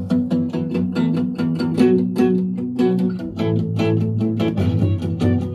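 Guitar song played back through an Anker Soundcore 2 Bluetooth speaker: a quick run of plucked guitar notes over held chords, with a stronger bass line coming in about halfway through.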